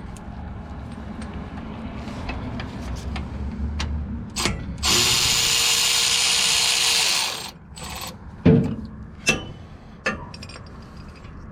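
Mechanic's tools working on a GM 10-bolt rear axle housing during tear-down. A power tool runs steadily for about two seconds in the middle, the loudest part, followed by a few sharp metal knocks.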